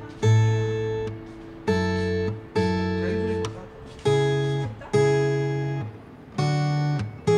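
Background music: an acoustic guitar strumming slow chords, each one ringing out before the next.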